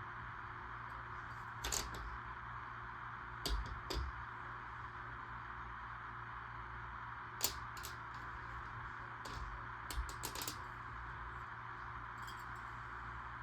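LEGO Technic plastic pieces clicking and clattering as they are handled and pressed together: a handful of short, sharp clicks in small clusters, over a steady hiss.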